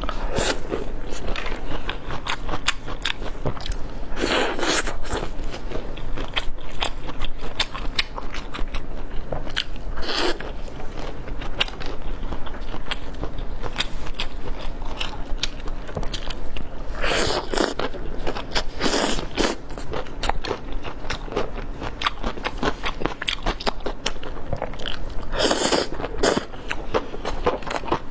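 Close-miked eating: crunchy biting and wet chewing with constant small crackles, and a few louder bites spread through.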